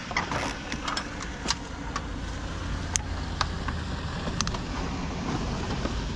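Gloved hands handling and zip-tying fiber drop cables: scattered sharp clicks and rustles, the sharpest about three seconds in, over a steady low rumble that grows stronger about halfway through.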